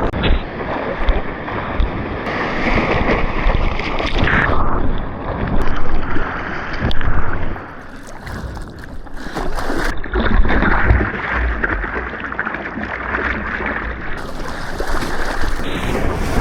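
Ocean water rushing and splashing around a surfer, rising and falling in surges, with wind buffeting the action camera's microphone.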